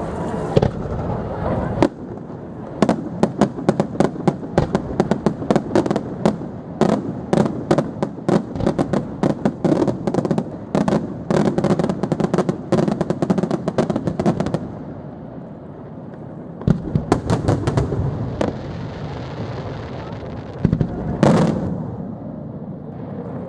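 Aerial fireworks display: a dense run of rapid bangs and crackling shell bursts for about twelve seconds, a brief lull, then more bangs and one loud shell burst near the end.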